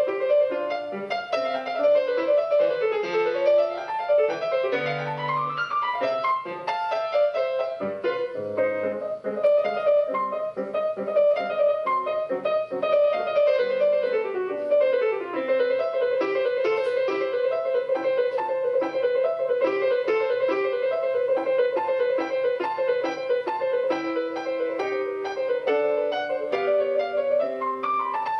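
Solo piano music: quick scale runs up and down, then a long passage of one note struck rapidly over and over beneath other notes.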